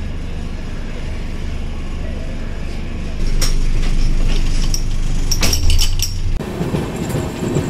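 Indian Railways passenger coach starting to move, heard at its open doorway: a steady low rumble that grows heavier about three seconds in. Over it come a run of sharp metallic clinks and clanks from the door's metal fittings. About six seconds in the sound changes abruptly to a louder, rougher running noise of the moving train.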